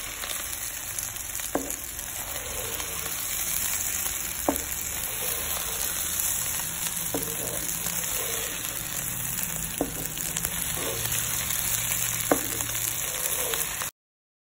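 Sliced ivy gourd and onions sizzling steadily in oil in a kadai while a spatula stirs them. The spatula knocks against the pan about every two and a half to three seconds. The sound cuts off suddenly near the end.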